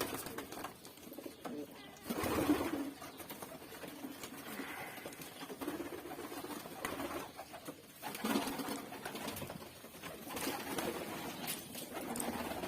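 Domestic pigeons cooing in a loft, in several low, rolling bouts.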